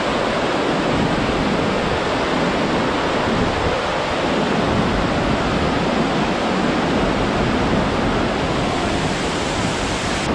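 Steady rush of a small waterfall pouring and splashing close by, a constant even noise with no change in level.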